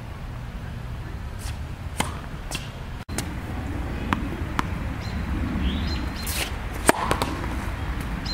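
Tennis ball knocking against racket strings and the hard court, a handful of separate sharp hits a second or so apart, the loudest near the end.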